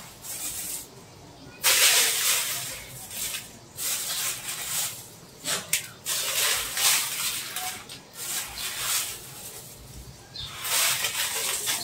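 A plastic bag of salt crinkling and rustling in several bursts as it is handled.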